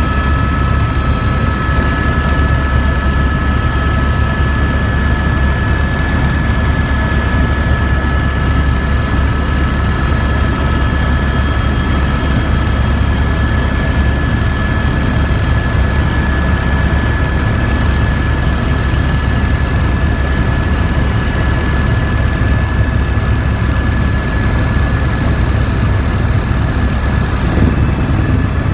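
Helicopter running steadily in flight: a loud, constant low drone with a steady high whine above it.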